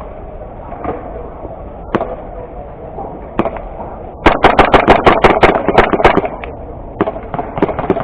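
Airsoft guns firing: a few single shots, then about four seconds in a rapid string of shots, about seven a second for some two seconds, followed by a few more scattered shots near the end.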